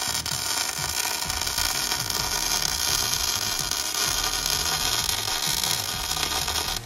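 MIG welding arc from a Hobart Ironman 230 wire-feed welder running a continuous bead on steel, a steady hissing crackle.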